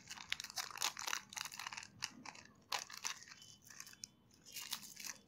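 Clear plastic bag crinkling as hands open it and draw out a small lavalier microphone: irregular crackles that ease off briefly about three-quarters of the way through.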